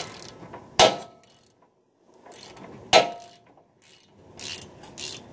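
A ratchet turning a 13 mm bolt screwed through a front brake rotor to jack the seized rotor off the hub: clicking and scraping metal, with two sharp metal clanks that ring briefly, about a second in and again about three seconds in.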